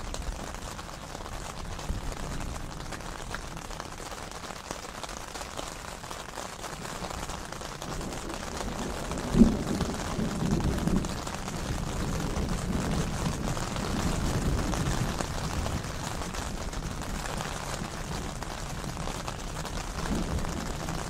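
Steady rain in a thunderstorm, with thunder rumbling low at intervals. A sudden sharp clap about halfway through is the loudest moment, followed by rumbling.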